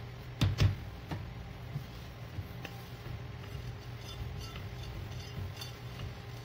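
Yeast doughnut dough being worked by hand on a floured stainless-steel counter: two heavy thumps about half a second in as the dough is pressed down on the steel, then light taps and clicks as it is flattened and the rolling pin comes into play. A steady low hum lies under it all.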